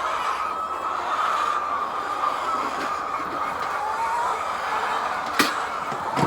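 Steady din of many hens in a poultry shed, with a sharp click about five seconds in.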